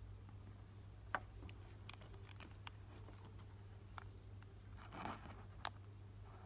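Faint handling of Pokémon trading cards and a foil booster pack: a sharp card tap about a second in, light ticks and scrapes, a short crinkle of the pack wrapper about five seconds in, then another sharp tap. A low steady hum runs underneath.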